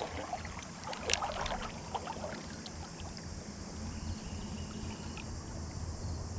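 River water running steadily, with a few light clicks about a second in.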